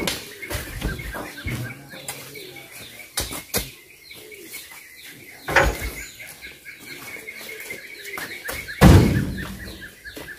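Heavy oil palm fruit bunches thudding as they are thrown up onto the load in a steel dump-truck bed: several thumps, the loudest near the end. A steady chirping runs underneath.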